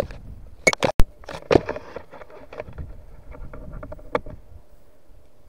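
Knocks and rustling of paragliding gear handled close to the microphone: a cluster of sharp knocks, the loudest a single hard knock about a second in, then lighter ticks and rustling.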